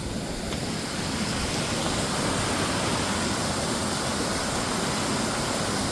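Steady rushing of falling water, an even hiss and rumble with no rhythm.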